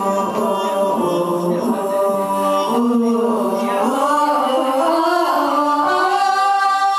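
Closing passage of an idol pop song: long held notes sung in layered vocal harmony, with no drums or bass underneath.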